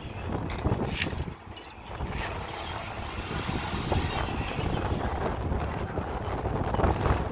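Metal clicks and scraping of safety carabiners being handled on a steel safety cable, with a sharp click about a second in, over a steady rumble of wind on the microphone.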